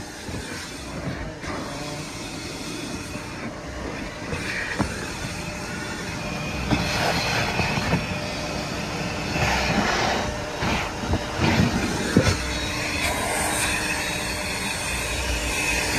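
Car wash vacuum running, its hose sucking at a car's interior, with occasional knocks as the nozzle moves about.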